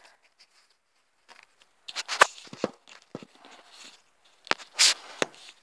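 Handling noise from the recording device being moved and repositioned: a few sharp knocks and rubbing scrapes in two clusters, about two seconds in and again about five seconds in.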